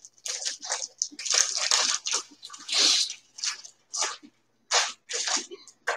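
Plastic Ziploc bag crinkling in irregular bursts as it is handled and pulled off a flattened chicken breast.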